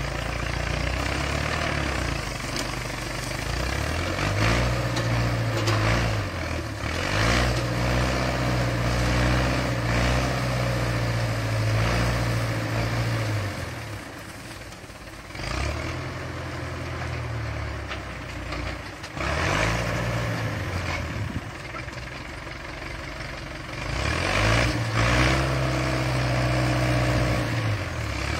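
Old diesel farm tractor working a front-mounted sugarcane grab loader: the engine rises in pitch and holds there for a few seconds several times, then drops back toward idle. There are a few short clattering noises.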